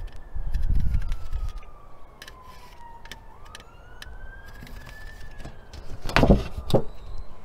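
Emergency-vehicle siren in a slow wail, its pitch rising and falling about every three seconds. Gusts of wind rumble on the microphone in the first second and a half, and near the end come two sharp knocks as the box lid is handled.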